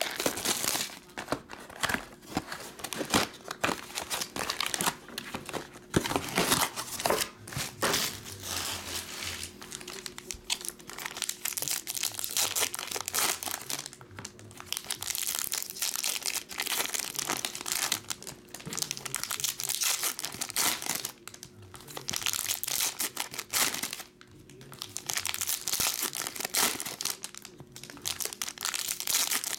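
Foil trading-card packs of 2021 Upper Deck Artifacts Golf being torn open and crinkled by hand, a crackling rustle that goes on and off with a few short pauses.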